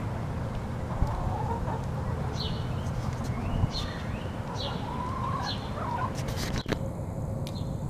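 Hens clucking softly while they feed, with a few short high chirps in the middle and a few sharp taps near the end, over a steady low rumble.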